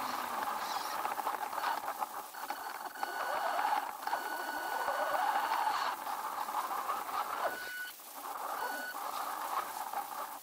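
WLtoys 10428 RC truck's electric motor and gearbox whining as it drives over a dirt trail, the pitch rising with the throttle, while a high thin whine cuts in and out several times.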